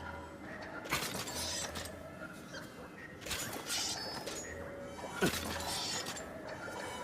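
Sword sound effect for an ōdachi (Japanese great sword): a sudden metallic strike with a bright ringing, about a second in and again around three and a half seconds, and a quick falling swish about five seconds in.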